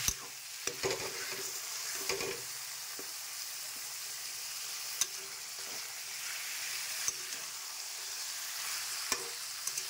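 Mutton frying in oily spiced masala paste in a pan, a steady sizzle, while it is stirred with a spatula that knocks and scrapes against the pan now and then.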